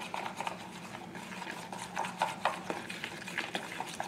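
Small spoon stirring a thin yeast, water and flour mixture in a plastic bowl: irregular light taps and scrapes against the bowl's sides, growing louder and more frequent about halfway through.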